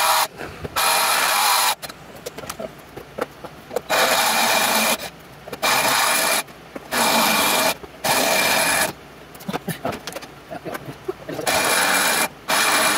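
Cordless drill boring through a welded square steel tube, run in repeated bursts of about a second with short pauses between, the bit grinding at the steel. The hole is slow going.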